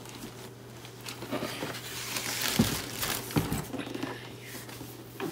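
Plastic packing material and packaging crinkling and rustling in a cardboard shipping box as a boxed action figure is lifted out, with a couple of soft thumps near the middle.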